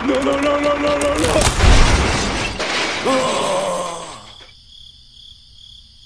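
A toy tractor and trailer fall into a sand-covered pit: a loud crash with breaking noise about two seconds in, between wavering, voice-like pitched cries. From about four seconds a thin, steady, high pulsing tone takes over.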